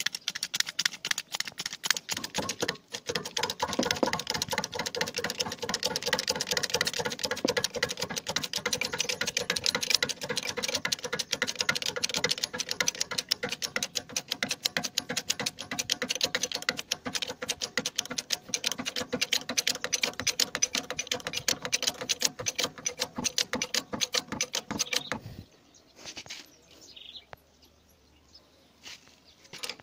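Starfer 16-ton hydraulic bottle jack being pumped by its handle under load, a fast run of metallic clicks and clatter, played at double speed. The pumping stops about 25 seconds in.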